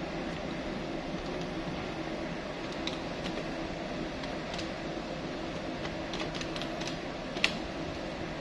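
Keys of a desktop electronic calculator pressed with a pen tip: a scattering of small sharp clicks from about three seconds in, the loudest one near the end. A steady mechanical hum runs underneath.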